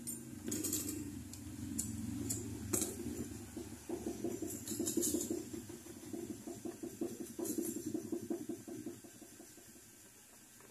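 Handheld gas soldering torch burning with a low, rapidly fluttering sound while heating a bangle's joint, fading near the end, with a few light metallic clinks of tool and wire.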